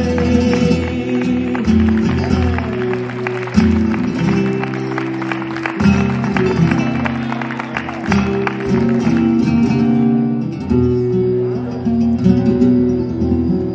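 Flamenco guitar playing an interlude without singing in a cante de Levante. Fast strummed chords fill the first several seconds, then it thins to sparser, ringing picked notes.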